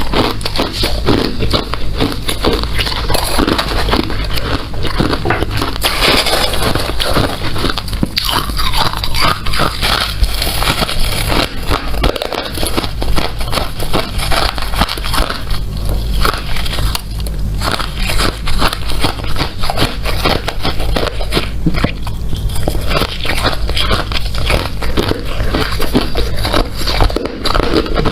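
Hard ice being bitten and chewed close to the microphone: dense, unbroken crunching and crackling.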